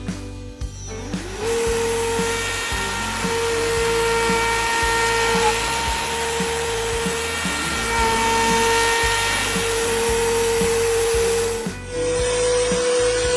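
CNC router spindle carving wood: a steady high whine with a broad hiss that starts about a second and a half in and cuts off sharply near the end. Background music plays under it.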